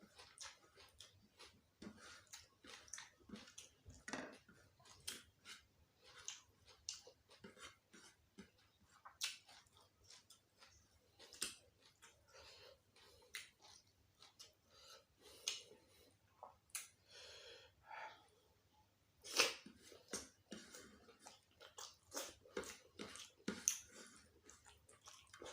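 A person chewing close to the microphone: irregular wet mouth smacks and clicks, with occasional crunches, as gulai kikil and raw vegetables are eaten. About three-quarters of the way through comes one sharper, louder snap.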